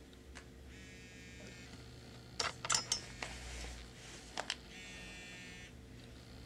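A small motor whirring twice in high-pitched buzzes of about a second each, with a quick cluster of sharp clicks and taps between them.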